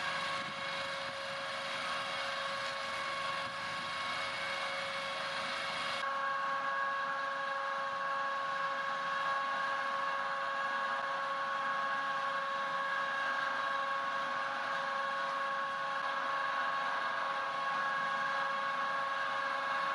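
A machine running at a steady speed: an even mechanical drone with a constant high-pitched whine, unchanging in pitch or level.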